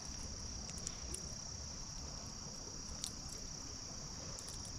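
Steady high-pitched insect chorus, a continuous shrill drone of crickets, with a few faint clicks.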